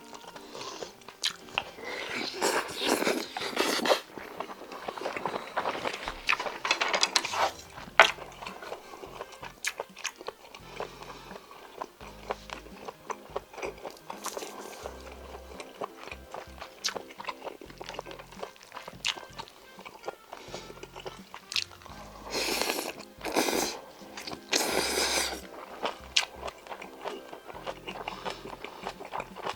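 Close-miked eating: a person chewing mouthfuls of stir-fried small octopus and rice, with many wet mouth clicks and smacks and a few louder stretches of chewing.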